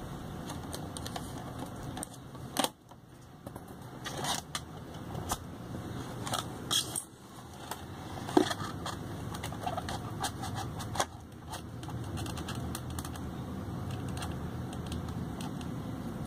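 Handling noise from a car stereo head unit and its parts: scattered clicks, knocks and scrapes of plastic and metal as they are moved and set down, the loudest at about three seconds and about eight seconds in, over a steady low hum.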